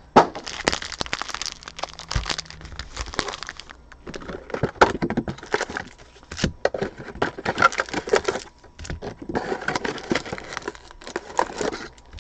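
Crinkly plastic trading-card packaging handled close to the microphone, crackling and rustling in irregular bursts throughout.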